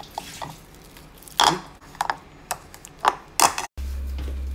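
Potato masher pressing a peeled banana in a plastic bowl: a run of irregular sharp knocks and clacks, the loudest about a second and a half in. After a sudden break near the end, a steady low hum.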